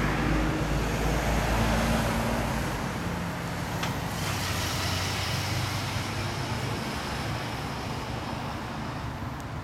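Motorcycle engine running close by, loudest in the first two or three seconds, then fading away gradually as the bike rides off.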